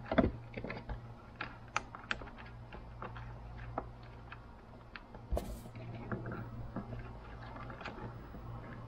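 Small clicks, taps and rustles of insulated wires being pulled back and fed under a bundle of wiring behind an aircraft's instrument panel. There is a louder knock about a quarter second in and a short scrape a little past halfway, over a steady low hum.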